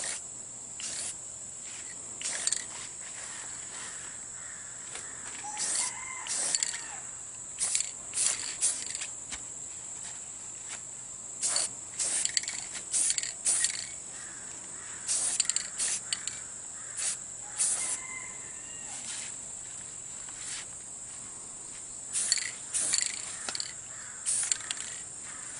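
Aerosol spray-paint can sprayed in many short bursts of hiss, laying on light coats of paint.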